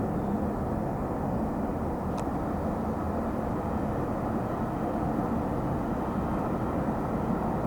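Jet engine noise from a Boeing 777-300ER airliner, a steady, even sound that neither rises nor falls, with a faint tick about two seconds in.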